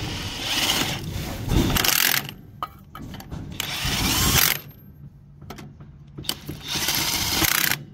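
DeWalt cordless impact wrench hammering lug nuts down on a trailer wheel in three bursts, the first about two seconds long, the second shorter about three seconds in, and a brief one near the end, tightening the nuts on the replacement wheel.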